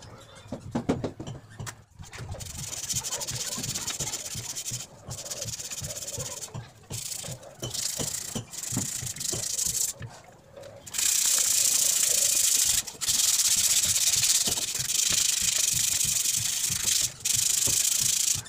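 Sandpaper rubbed by hand over the rusty metal legs of a swivel office chair base: a rasping scrub in stretches with short pauses, continuous and loudest in the second half. A few knocks near the start.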